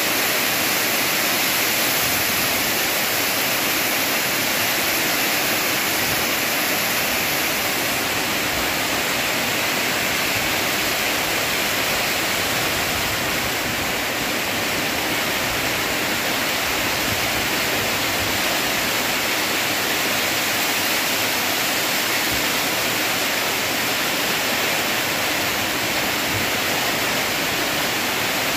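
Heavy rain falling steadily, an even hiss with no breaks or separate drops standing out.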